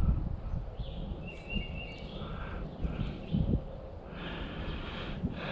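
Birds singing, short chirping phrases every second or so, over a low rumble with a few dull thumps, the loudest about three and a half seconds in.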